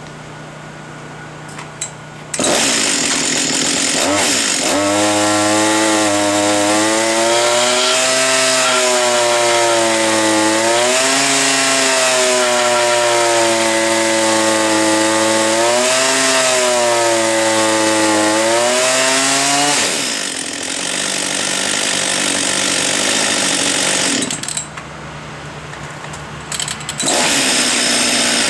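Hot Husqvarna 562 XP two-stroke chainsaw with a working AutoTune: idling at first, revved up sharply a couple of seconds in, then running at high speed with its pitch dipping and recovering repeatedly, dropping back to idle near the end before revving again. It idles and holds speed when hot as it should.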